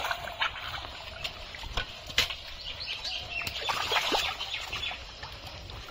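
Hands and a hooked stick working through wet pond mud and shallow water: irregular squelches, slaps and small splashes, busiest about four seconds in. A few short bird chirps sound behind.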